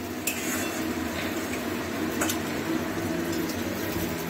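Sauce simmering in a kadai over a gas burner, a steady bubbling hiss, with a couple of light clicks from the spatula against the pan.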